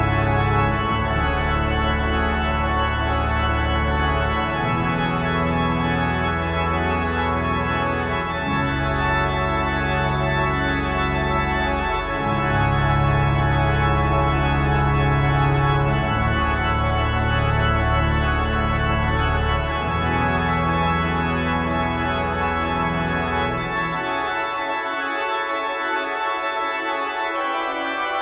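Church pipe organ playing fast, constantly repeating figures in the manuals over sustained pedal bass notes that change every few seconds. The pedal bass drops out about 24 seconds in, leaving the repeating upper figures.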